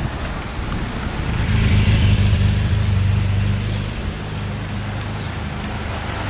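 A car engine running with a steady low hum, swelling about a second and a half in and easing off again after about four seconds.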